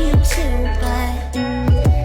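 Music: a pop track with deep kick drums and a bass line under a sustained melody.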